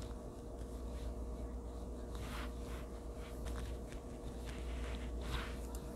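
Faint rustling and a few light taps over a steady low hum.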